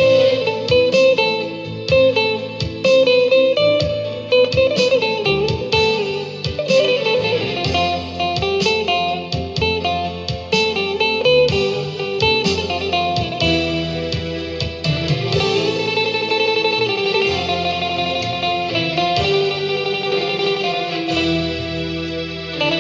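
Instrumental guitar music: a melodic lead line with bending notes over a steady bass and plucked accompaniment.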